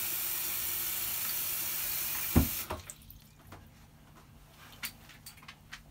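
Bathroom sink tap running, water filling the basin, then shut off about two and a half seconds in with a sharp knock. After that, only faint small clicks and rustles.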